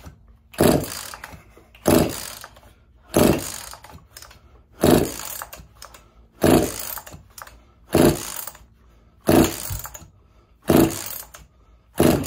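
Hybrid Husqvarna 50 chainsaw with a Partner 5000 top end being pull-started: about nine quick pulls of the recoil starter rope, roughly one every second and a half, each a short whirr of the engine turning over. It does not fire between pulls; the saw has no choke.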